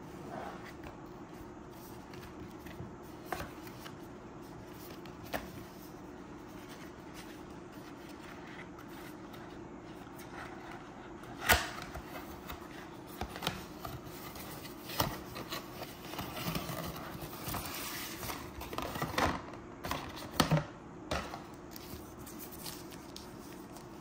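Cardboard box and plastic packaging being handled over a faint steady hum. There are a few light taps at first, then from about halfway a run of clicks, scrapes and rustling as a box flap is opened and a frosted plastic bag is drawn out. One sharp click about halfway through is the loudest.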